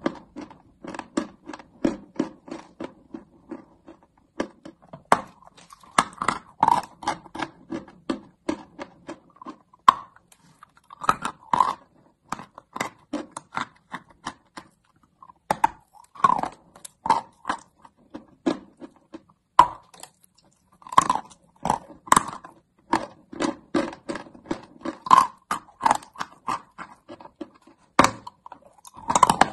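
Close-up mouth sounds of a person chewing hard, crunchy white chalk: a run of sharp crunches with short pauses between chewing spells, and a fresh bite into a chunk near the end.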